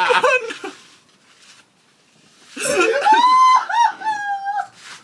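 A person's voice: a brief bit of talk at the start, then, about halfway in, a high-pitched vocal sound held for about two seconds on a wavering pitch.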